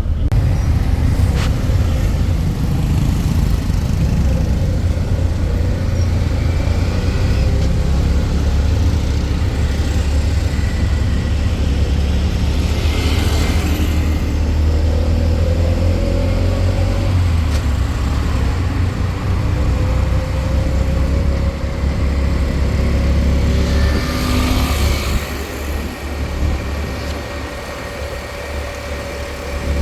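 Road vehicle running in traffic: a steady, loud low engine and road rumble, with a hissing swell about halfway through and again near the end, as of vehicles passing.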